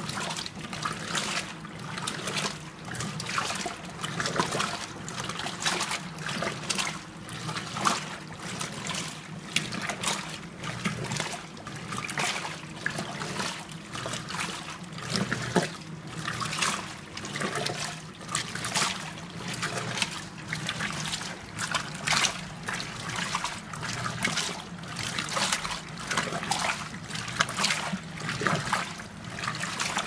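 Danby DWM17WDB portable top-load washer agitating a load in its wash cycle: water sloshing and swishing around the tub in repeated surges, over a low steady hum.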